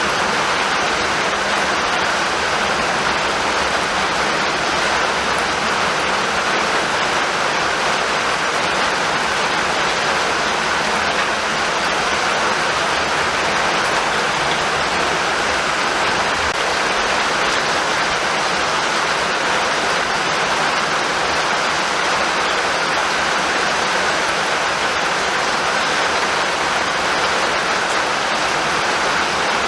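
Steady, heavy rainfall, an even hiss of rain pouring down without a break.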